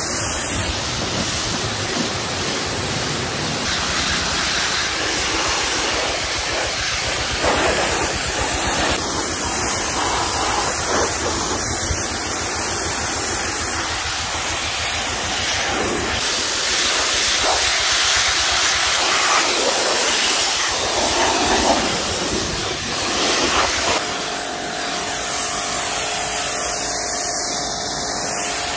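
Pressure washer jet blasting water onto concrete and the stone fountain base: a loud, steady hiss of spray. Near the end, a steady hum joins in under the spray.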